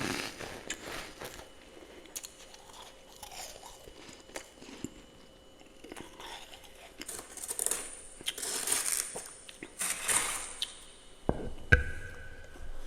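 Close-up chewing and crunching of powdery freezer frost, quiet at first, then several louder bursts of crunching in the second half. A low thump near the end.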